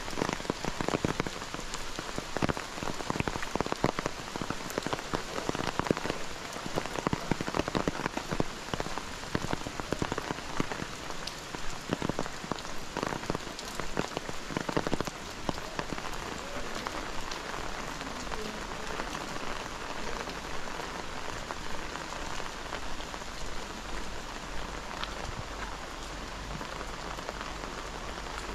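Steady rain falling, with dense, sharp drop strikes that are heaviest in the first half and thin out about halfway through into a more even hiss. A low steady rumble comes in at about the same point.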